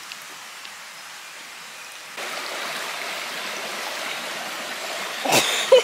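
River water running, a steady rush that gets louder about two seconds in. A short, sharp sound cuts in near the end.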